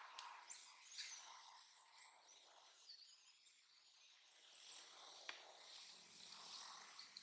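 A baby long-tailed macaque gives a thin, very high, wavering squeal that lasts about four seconds and then stops.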